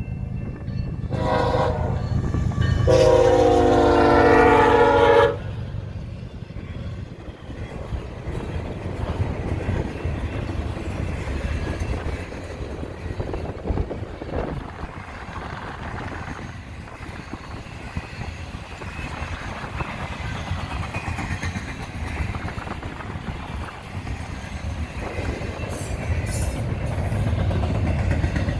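BNSF diesel locomotive's horn sounds a short blast, then a long loud blast of about two and a half seconds. After it, the double-stack freight train rolls past with a steady low rumble of wheels on rail.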